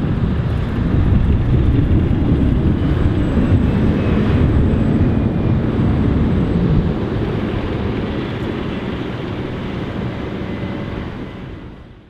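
Volvo FH13 540 wood chip truck's 13-litre six-cylinder diesel running as a steady low rumble while its tipper trailer unloads sawdust. It is louder in the first half, then quieter, and fades out at the end.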